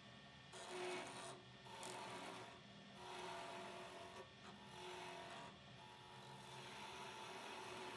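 A hand-held turning chisel cutting a spinning wooden baluster spindle on a woodturning lathe: about five rasping, shaving passes of roughly a second each. The lathe's steady hum shows through between them.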